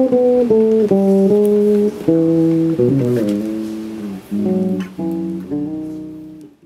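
Acoustic guitar playing sustained chords, changing about once a second and gradually fading out near the end.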